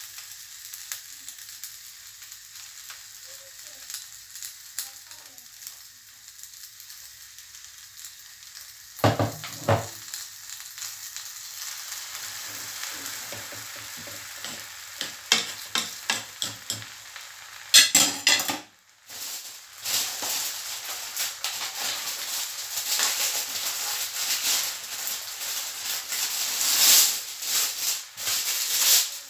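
Egg-and-vegetable mixture sizzling in a non-stick frying pan on top of a paratha, the hiss growing louder partway through as more of the mixture goes in. A spatula scrapes and knocks against the pan now and then.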